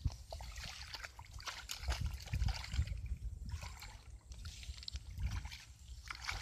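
Feet wading through a shallow, muddy ditch: irregular sloshing and squelching of water and mud, with grass brushing against the legs.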